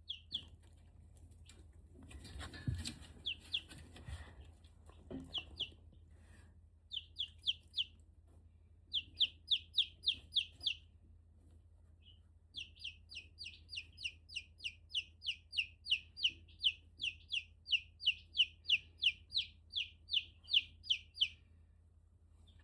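Chick peeping: a run of short, high, falling peeps, about three a second, coming in bursts with the longest burst over the second half. A brief rustle with a couple of low thumps shortly after the start.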